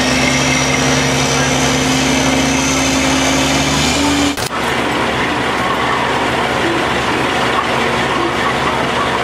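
Race-pit ambience: machinery humming steadily with a faint high whine and voices in the background. About four seconds in the hum stops abruptly with a brief click, and busy crowd and pit noise carries on.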